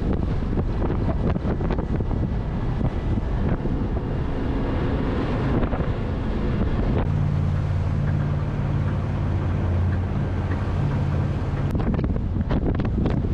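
Wind buffeting the microphone over the rush of river rapids around a moving boat. A steady low hum joins in about halfway through and stops abruptly near the end.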